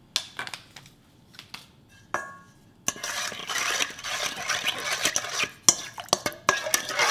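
Wooden spoon stirring dry yeast into sugar water in a stainless steel bowl, scraping and clicking against the metal from about three seconds in. Before that, a few light clicks and one short metallic ring.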